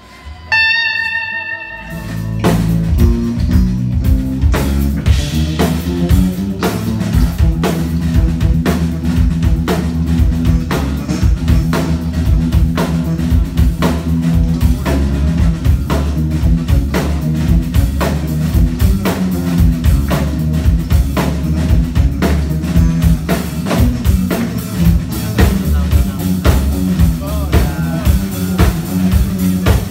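Live blues band. A single electric guitar note rings and sustains about half a second in. From about two seconds, bass guitar and drum kit play a steady groove, with the bass notes prominent.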